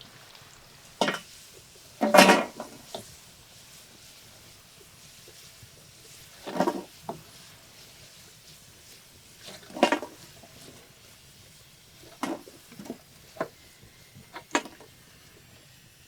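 Intermittent kitchen handling sounds: short scrapes and knocks of utensils against dishes, about half a dozen, a few seconds apart, the strongest about two seconds in.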